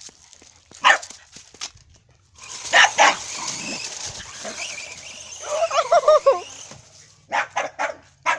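A dog barking in short, sharp barks, with a wavering whine about six seconds in and a quick run of barks near the end.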